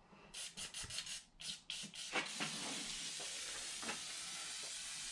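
Aerosol can of penetrating oil spraying: several short spritzes, then one long steady hiss from about two seconds in. The oil is being sprayed onto a rust-seized steering shaft to free it.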